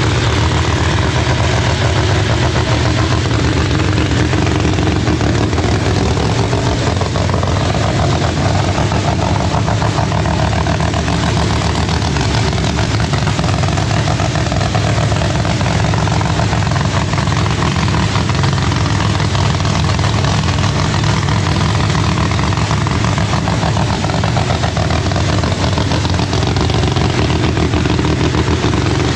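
Pro Line MH7 Hemi drag-racing engine idling steadily and loudly.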